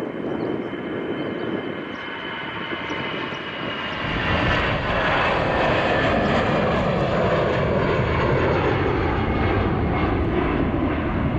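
Airbus A320's twin jet engines at takeoff power as it rolls and climbs away: a high fan whine slowly falling in pitch, with a deep rumble that swells about four seconds in and holds loud.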